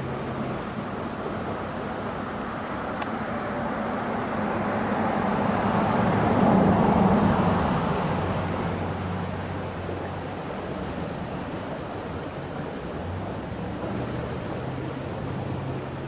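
A vehicle passing by, its noise swelling to a peak about six to seven seconds in and then fading away.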